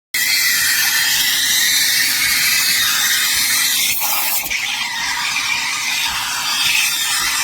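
De'Longhi Dedica Duo steam wand hissing steadily as it froths milk, with the tone shifting about four seconds in.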